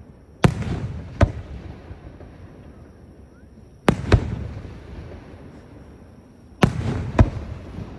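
Fireworks shells bursting overhead: three pairs of sharp bangs about three seconds apart, each followed by a rumbling echo.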